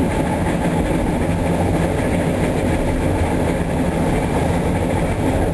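Steady running rumble of a passenger train, heard from inside the carriage as it travels along the rails.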